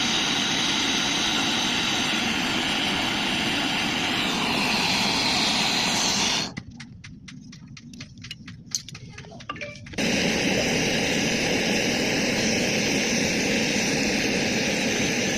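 Pressurised gas rushing out with a loud, steady hiss. It cuts off about six and a half seconds in, with a few faint clicks in the gap, and starts again about three and a half seconds later.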